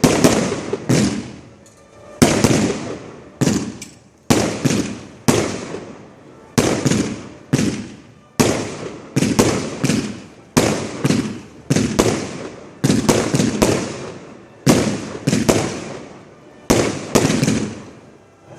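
Display fireworks shells going off in rapid succession, heard close to the firing site: sharp bangs about one to two a second, often in quick pairs and triplets, each trailing off in a rumbling echo.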